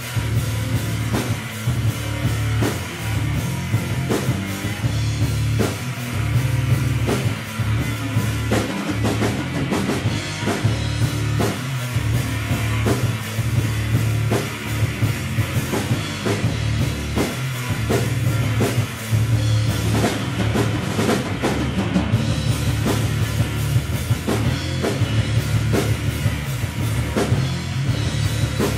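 Live rock band playing an instrumental passage: a resonator-bodied electric guitar, bass guitar and drum kit, with a heavy bass line and steady, regular kick and cymbal hits.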